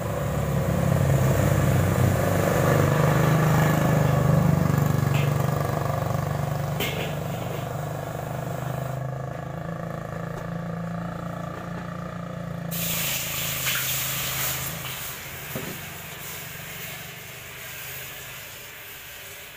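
Gas wok burner roaring with a steady low rumble and hiss under an empty new stainless steel wok being heated to season it. Loudest in the first several seconds, then slowly dying down as the flame gets smaller.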